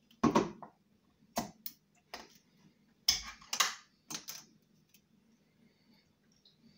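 A series of sharp clicks and knocks from a metal drink can being handled on a kitchen worktop and its ring-pull opened, the loudest cluster about three seconds in. The clicks stop after about four and a half seconds.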